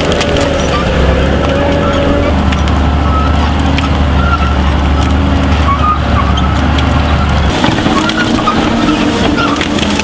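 Heavy tracked forestry machine's diesel engine running under load while its front twin-rotor cutting head grinds through stumps, brush and soil. The low engine drone changes note about seven and a half seconds in.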